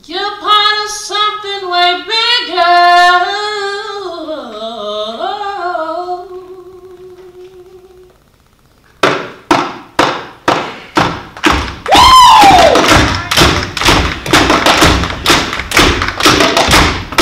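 A singing voice holds a long, wavering note that fades away over about eight seconds. After a short pause, rhythmic hand claps and thumps start at about two a second, growing denser, with a falling 'whoo' shout partway through.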